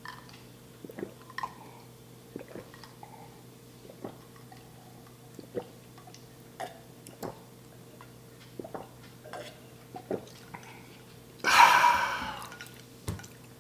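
A man drinking water from a glass in a series of soft, irregular swallowing gulps, then a loud breathy exhale near the end as he lowers the glass.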